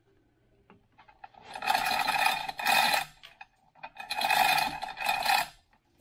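Chain hoist running in two short bursts about two seconds apart, its chain rattling through the hoist as it lifts a cast-iron mill table in a sling.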